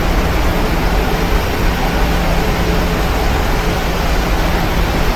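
Steady cabin noise inside a Boeing 737-900 on descent: a constant rush of airflow and engine noise, with a faint steady hum underneath.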